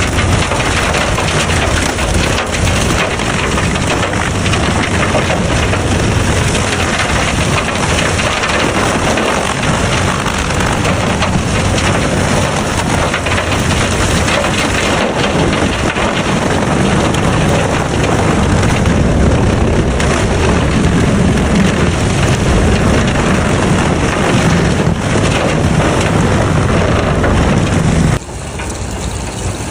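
Disc wood chipper running, a loud dense noise that drops suddenly near the end to a quieter, steadier running.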